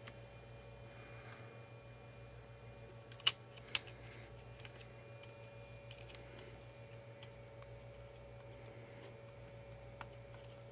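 Two short, sharp clicks about half a second apart, roughly three seconds in, as small laptop parts and connectors are handled during a fan swap, over a steady low hum.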